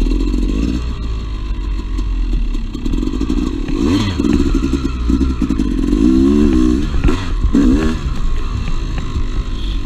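Two-stroke dirt bike engine running on a trail ride, the revs rising and falling several times as the throttle is worked, with a brief clatter about four seconds in.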